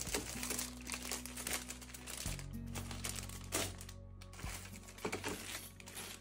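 Plastic packaging crinkling and rustling in irregular handfuls as bagged craft supplies are handled and set into metal wire baskets, with the sharpest rustles at the very start and about three and a half seconds in. Soft background music with slow sustained chords plays underneath.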